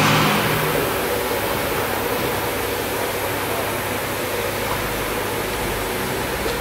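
Automatic bottle packing line running: the chain conveyor and machine motors give a steady mechanical hum and whir with a faint steady tone. A brief louder rush of noise comes right at the start.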